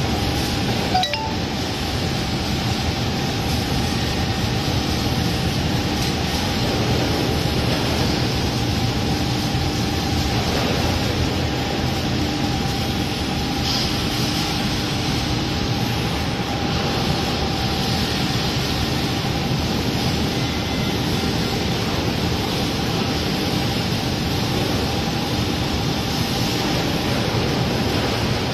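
Steady factory-floor noise from a gantry robotic welding line at work: an even hiss with a faint steady hum, and one sharp click about a second in.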